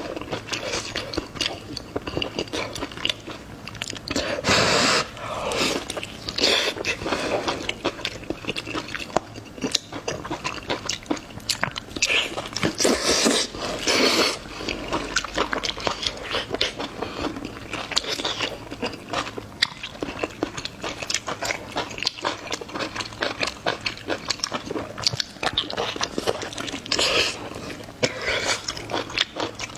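A person chewing and biting food close to the microphone: a dense, irregular run of small wet clicks and smacks, with louder stretches about four seconds in and around the middle.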